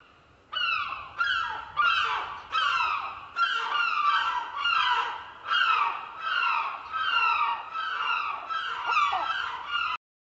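Bird calls: a string of short calls, each falling in pitch, about one and a half a second, cutting off suddenly near the end.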